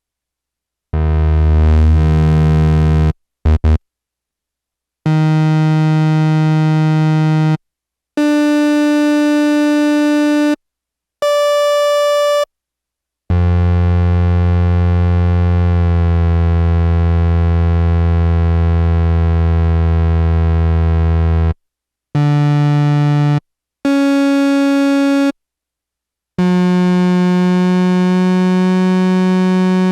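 Yamaha SY-2 analog synthesizer playing single sustained notes one at a time at different pitches. Each note is bright and steady and cuts off abruptly into silence before the next, with one long low note in the middle. The first note's tone brightens as it begins.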